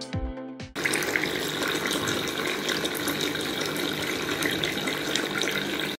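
Background music ends, and then, under a second in, a homemade cement tabletop fountain starts up with a steady splashing trickle. Its small submersible aquarium-type pump pushes water out from under the top plate into the bowl.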